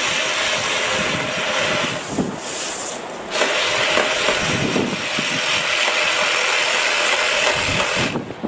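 BLACK+DECKER 18V cordless power saw running under cut with a steady motor whine and a hiss. It dies down for about a second two seconds in, runs again, and stops abruptly near the end.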